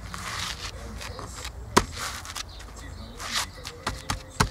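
Large paving slab being shifted into place on a sand bed by hand: short gritty scrapes with a few sharp knocks as slab edges meet, the loudest about two seconds in.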